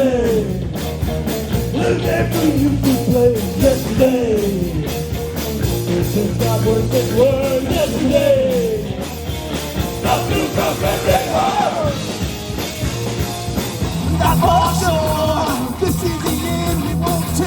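Live rock band playing an instrumental passage: a sliding lead melody over bass and drums, with the band moving into a fuller, heavier section about fourteen seconds in.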